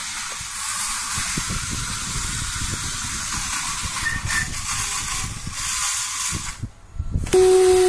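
Steady hiss with faint low clicks and scrapes as a plastic toy bullet train is handled on its plastic track. Near the end a loud steady hum suddenly starts.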